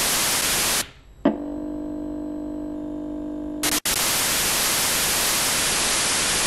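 Loud, steady hiss of recording static. About a second in it breaks off: a click, then a couple of seconds of steady electrical hum, then a short dropout and the hiss again.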